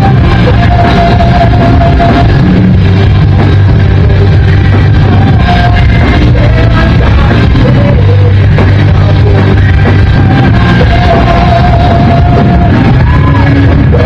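Rock band playing live and loud: bass guitar and drums under a singer's long, wavering held notes.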